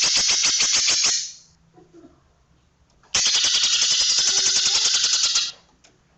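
Cucak ijo (green leafbird) song in its rapid-fire 'tembakan' style: a fast run of sharp, high notes at about ten a second. The first run breaks off about a second in, and a second run starts about three seconds in and lasts a little over two seconds.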